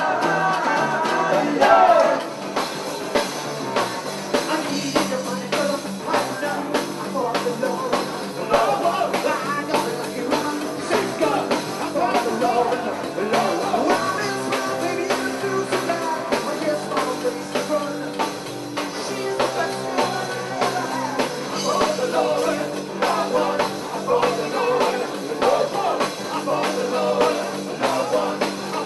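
A live rock band playing, with a man singing lead over electric bass and guitar and a steady beat.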